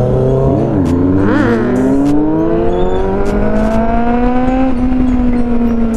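Kawasaki inline-four motorcycle engine blipped twice in quick succession, then pulling hard with its pitch rising steadily for about three seconds. About five seconds in it drops at an upshift and runs on at a steady pitch, with wind noise on the microphone.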